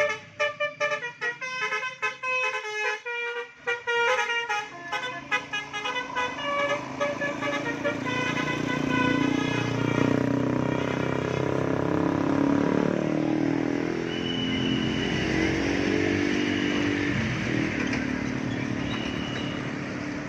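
A bus's multi-note 'telolet' musical horn plays a quick, jumpy melody for about the first eight seconds. Then the melody gives way to steady engine and road noise from passing traffic, with a few short high tones late on.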